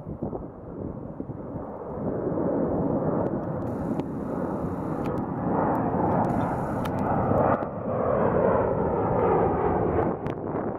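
Twin-engine jet airliner climbing out low overhead after takeoff: a loud jet engine roar that swells about two seconds in and stays strong as the plane passes.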